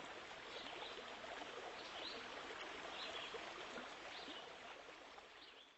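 Steady rush of running water with short, high bird chirps about once a second; it starts abruptly and fades near the end.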